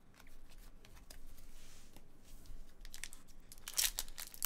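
A foil Upper Deck hockey card pack being torn open by hand: sharp crackling and crinkling of the wrapper that starts about three and a half seconds in, after a few quiet seconds.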